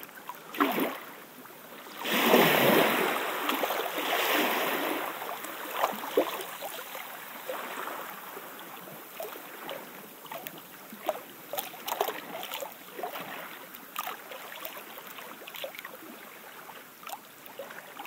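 Water lapping and splashing: a steady wash with many small irregular splashes, and a louder surge about two seconds in that fades over the next few seconds.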